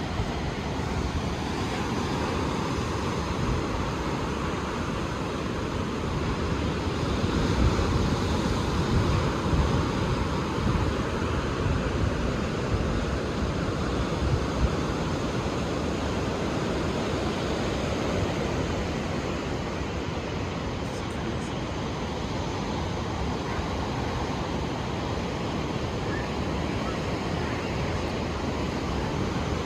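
Ocean surf: waves washing onto the shore in a continuous rush, swelling louder for a few seconds about a quarter of the way in.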